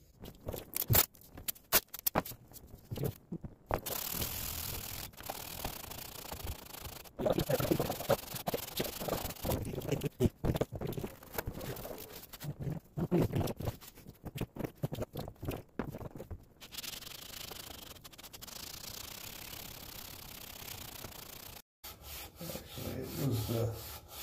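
Wet aluminium cylinder head of a Kawasaki FH721D being handled and wiped down with a paper shop towel: a few sharp knocks and clatters at first, then a long stretch of rubbing. Near the end the head is set back on the wet lapping stone and rubbing strokes start again.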